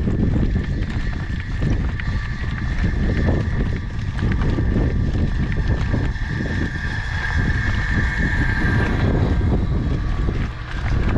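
Strong wind buffeting the microphone, a loud low rumble, with a steady high whine running through most of it that fades out near the end.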